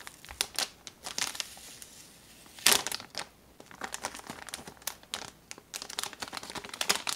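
Metallized anti-static plastic bag holding a replacement laptop battery, crinkling in irregular crackles as it is handled, loudest about three seconds in.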